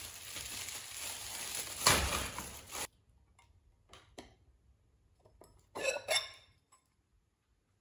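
Kraft-paper packing rustling and crinkling for about three seconds as it is pushed aside. Then a few light knocks, and near the end two quick clinks of the IKEA Dinera stoneware bowls knocking together as they are lifted out stacked.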